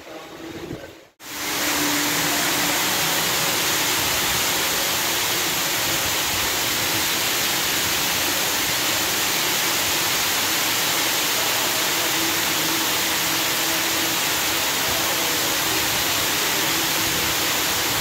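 Heavy rain pouring onto the corrugated metal roof of a covered walkway, a dense, steady hiss. It cuts in sharply about a second in.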